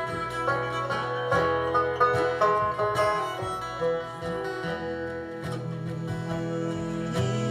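Acoustic band playing an instrumental break with no singing: a line of quick plucked notes over strummed acoustic guitar.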